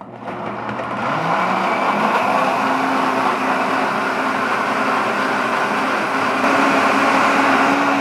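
Britânia B1000 1200 W blender running, blending frozen kale leaves, pineapple, ginger and water. The motor picks up speed over the first two seconds, its whine rising, then runs steadily.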